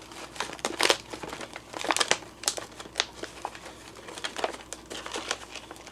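Plastic zip-top bag and Mylar meal pouch crinkling in the hands as food is packed and the pouch is zipped shut, with irregular crackles throughout.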